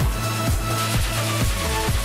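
Electronic background music with a steady kick-drum beat and held synth notes.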